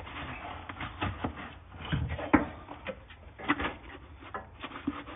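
Irregular knocks, clunks and scrapes as a Lexus GX470's deflated rear air spring is worked loose and pulled out of its seat. The sharpest knock comes about two and a half seconds in.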